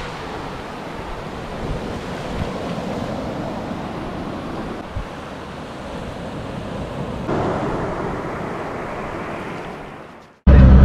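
Small waves washing in over a shallow sandy beach, a steady hiss of surf with some wind on the microphone. It grows louder about seven seconds in, then fades out near the end.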